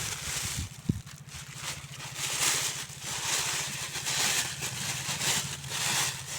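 A small boat engine running steadily with a low pulsing hum, under a loud rushing hiss that swells and fades every second or so.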